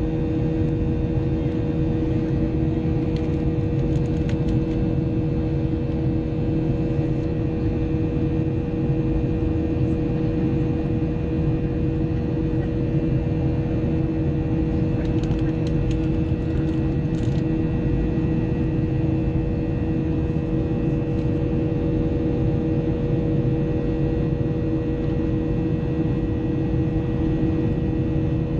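Steady drone of a Boeing 737-800's CFM56-7B jet engines heard from inside the cabin: a deep, even rumble with several constant whining tones over it, holding a steady thrust setting.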